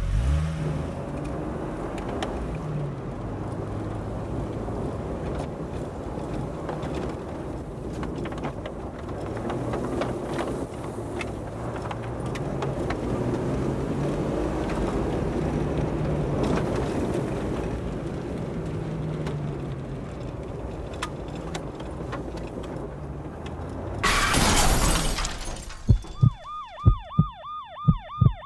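Rumbling road noise from a moving car, then about 24 seconds in a sudden loud burst of noise lasting about a second, followed by an emergency vehicle siren wailing rapidly up and down, about three cycles a second.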